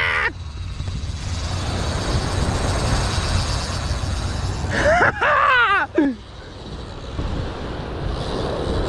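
Wind buffeting the microphone over breaking surf, a steady rushing noise with low rumble. A short exclaimed voice cuts in about five seconds in.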